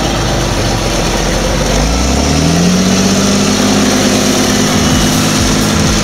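Large diesel tractor engines running close by. About two seconds in, one engine revs up and holds at the higher speed.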